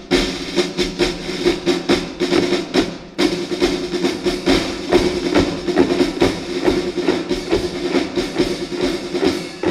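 Music of marching snare drums playing a fast, steady cadence, many strokes a second, with a sustained low note underneath.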